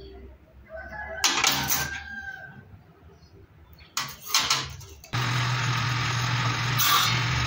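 A rooster crows about a second in, and there are a few knocks of wood being handled. About five seconds in, a table saw's motor switches on abruptly and runs with a steady hum.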